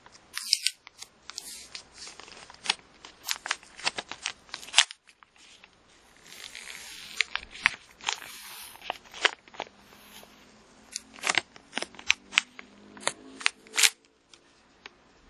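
Gold plastic wrapper being picked at and peeled off a phone battery: an irregular run of sharp clicks and crackles of the film, with a few short tearing hisses as it comes away.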